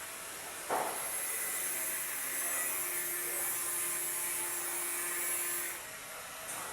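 Electric arc welding: a steady hiss from the welding arc, starting sharply about a second in, breaking off briefly near the end and then picking up again.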